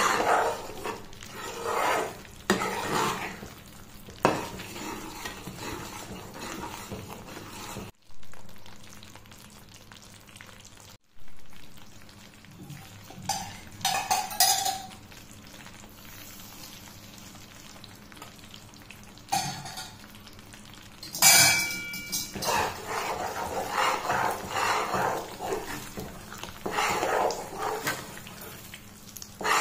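Spatula scraping and stirring a thick Mysore pak batter of gram flour, ghee and sugar syrup in a nonstick pan, the mixture sizzling and bubbling in hot ghee between bouts of stirring. One sharp knock of utensil on pan comes about two-thirds of the way through.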